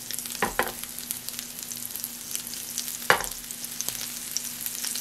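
Flour-dusted tofu slices pan-frying in a little oil, a steady crackling sizzle with two louder spits, about half a second in and about three seconds in.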